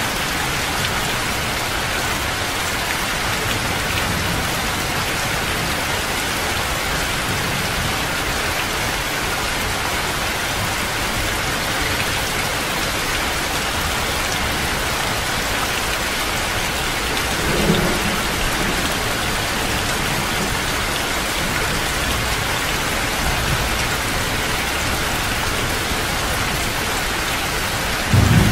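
Heavy rain falling steadily. A brief low thump comes about two-thirds of the way in, and a louder one right at the end.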